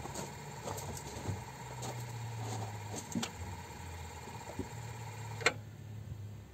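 Hyundai Ioniq's electric air-conditioning compressor running with a steady low hum and a faint higher whine, with light scattered ticking. A sharp click comes about five and a half seconds in, and the whine stops after it while the hum goes on.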